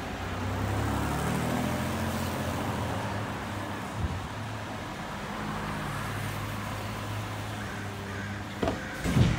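Automated side-loader garbage truck with its engine revved up to drive the hydraulic arm as it lifts and dumps a trash cart. There is a short knock about four seconds in, and loud plastic clatters near the end as the empty cart is set back down on the curb.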